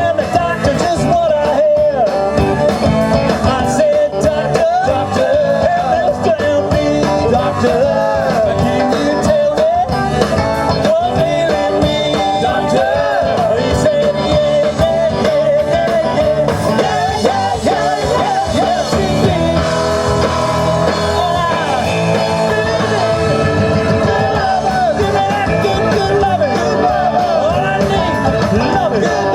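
Live rock and roll band playing without a break: drums, bass and electric guitar, with a wavering melody line on top.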